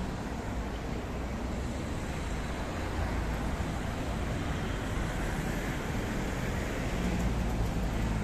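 City road traffic: cars driving past through an intersection, a steady rumble of engines and tyres.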